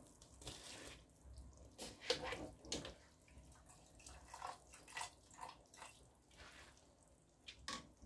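Washed rice poured into a pot of simmering tomato and pepper stew: soft, irregular wet plops and splashes, the loudest about two to three seconds in.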